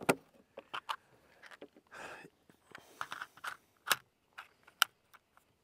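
Scattered clicks and light knocks of an air rifle being handled on a shooting rest, with a short rustle about two seconds in; the sharpest clicks come right at the start and about four seconds in.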